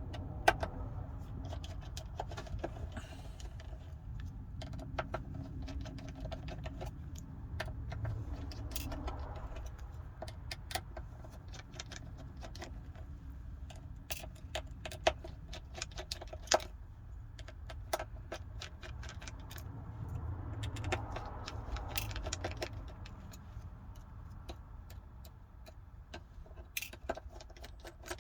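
A small screwdriver and metal repair tools clicking and tapping against a phone's internal frame as its screws are taken out: scattered light clicks and ticks over a low steady hum.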